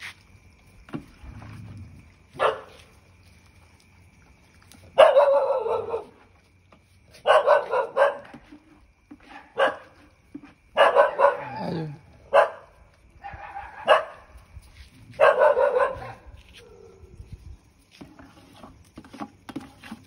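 Stray dogs barking in short bouts, about eight times, with quiet gaps between them.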